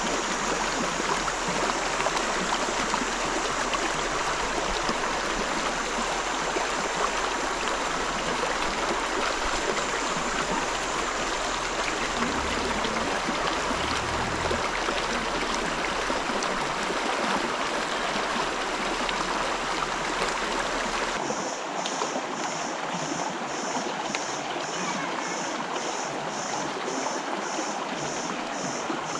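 River water rushing and babbling steadily over rocks. About three-quarters of the way in, the sound changes and a high pulsing, about two beats a second, joins it.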